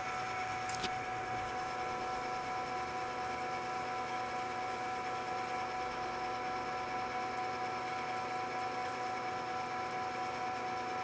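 Metal lathe running steadily while turning a metal shaft down in diameter, a steady whine of several held tones over a constant machining noise.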